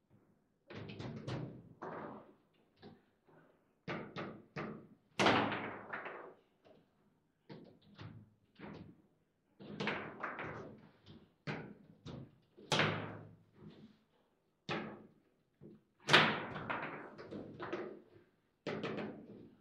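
Foosball table in play: an irregular series of sharp knocks and slams as the ball is struck by the plastic figures and bangs against the table, some hits much louder than others.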